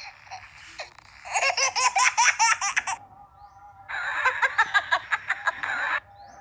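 Funny sound effect clips played back: a high-pitched, rapidly repeating laugh from about a second in to three seconds, then after a short gap a second short clip from about four to six seconds.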